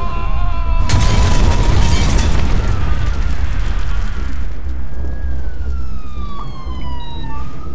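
Trailer sound effects: a deep, continuous rumble like explosions, with a held high tone in the first second and a falling whistle-like glide over the last few seconds.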